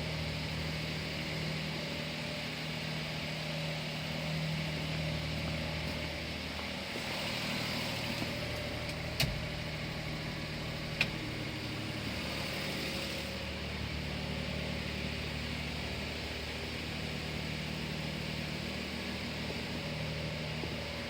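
Daihatsu Hijet Truck's 660 cc three-cylinder engine idling steadily, with two sharp clicks about nine and eleven seconds in.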